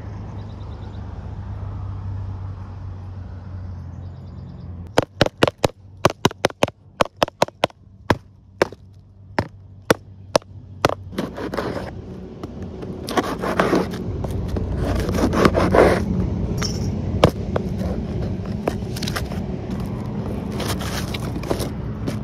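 White cardboard boxes being opened by hand: a run of sharp, irregular clicks, then a long scrape as a thin blade slits the packing tape along the box tops, with cardboard flaps rustling as they are pulled open.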